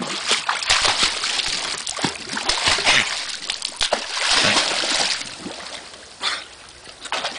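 A dog thrashing in pool water as it lunges at a pool-cleaning pole, making a quick run of splashes and sloshing. This eases about five seconds in as it swims calmly, with a couple of single splashes near the end.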